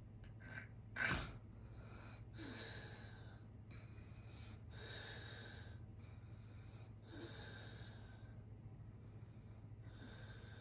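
A sleeping man breathing slowly and noisily, with a breath about every two and a half seconds, over a steady low hum. A sharp, loud sound about a second in stands out as the loudest moment.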